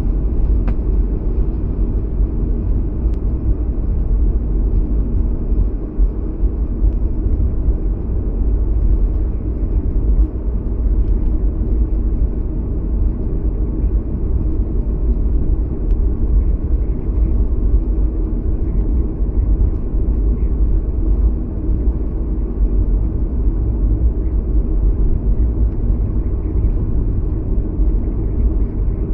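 Steady low rumble inside the cabin of a Boeing 737-300 taxiing, its CFM56 engines at idle and its wheels rolling over the taxiway.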